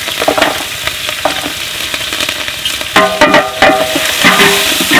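Sliced onions sizzling as they fry in hot oil in a large aluminium pot, stirred with a long metal ladle; the clatter and scraping of the ladle gets louder about three seconds in.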